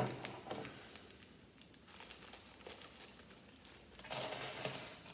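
Small plastic Lego pieces clicking and rattling as they are handled, with a sharp click at the start. A plastic parts bag crinkles about four seconds in.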